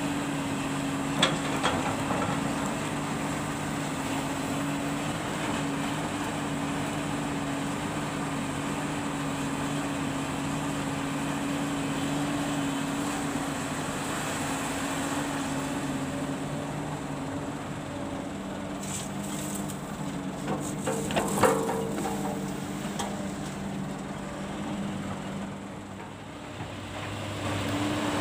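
Heavy diesel engine running steadily, with a couple of sharp metallic knocks about a second in and a louder burst of clattering about 21 seconds in.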